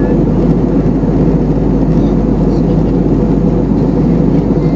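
Steady jet airliner cabin noise in flight: a constant low rumble and rush of the engines and airflow past the fuselage, heard from a window seat of an Airbus A320-family jet.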